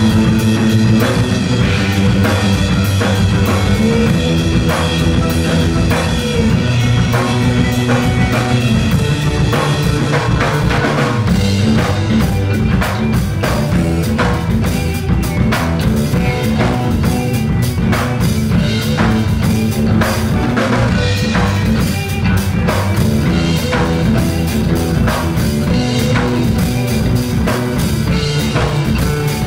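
Live band playing an instrumental funk jam: drum kit, bass guitar and violin over sustained low notes. The drumming grows busier about eleven seconds in.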